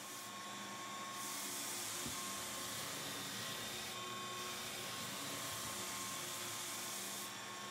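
Belt floor sander with a 100-grit zirconia belt running and sanding a hardwood floor: a steady hiss of the abrasive cutting over the machine's constant motor tone.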